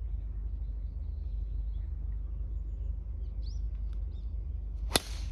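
A driver striking a golf ball off the tee: one sharp crack about five seconds in. Before it, a hushed wait with a low rumble on the microphone and a few faint bird chirps.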